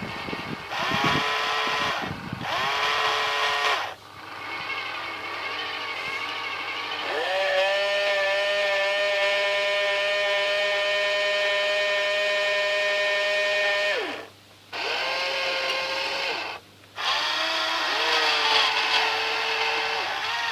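Small electric motors and gear drives of a 1:12 scale radio-controlled cable excavator whining in runs that start and stop. A few short runs come first, then a long steady run that steps up in pitch about a quarter of the way through, then two more runs after brief stops.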